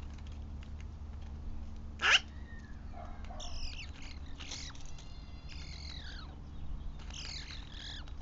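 Animal calls: one loud, sharp cry sweeping steeply down in pitch about two seconds in, then a series of high, short falling calls.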